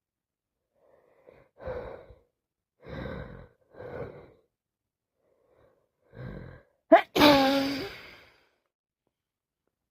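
A woman with a head cold winding up to sneeze: four gasping in-breaths about a second apart, then one loud sneeze about seven seconds in, a short sharp catch followed by a longer voiced burst falling slightly in pitch.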